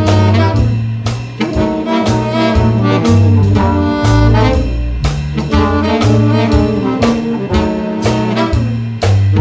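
Small jazz band playing swing: trombone and saxophone lines over a walking double bass, archtop electric guitar and a drum kit keeping a steady beat.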